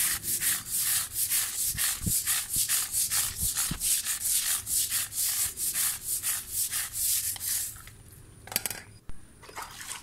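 Stiff long-handled floor brush scrubbing a wet, soapy textured tile floor in quick back-and-forth strokes, about three a second. The scrubbing stops near the end.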